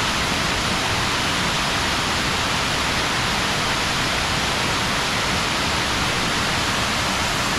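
River waterfall rushing, a steady, powerful noise of falling water.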